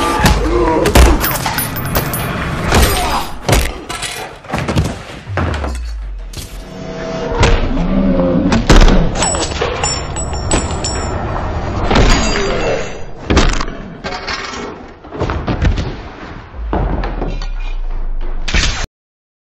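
Film fight sound effects: a rapid run of hard hits, thuds and crashes with glass breaking, over a faint music score. The sound cuts off suddenly near the end.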